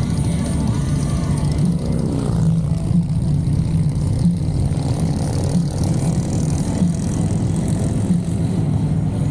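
Motorcycle engines running steadily in a group ride, a continuous low drone with no let-up.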